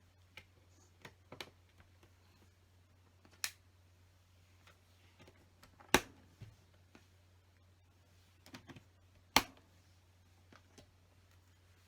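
Plastic LEGO pieces being handled and pressed together: scattered small clicks and taps, with two sharper snaps about six and nine seconds in, over a faint steady low hum.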